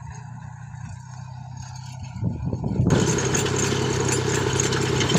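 Compact tractor's engine running steadily while it pulls a tined cultivator through the soil between crop rows; about three seconds in it becomes much louder and harsher.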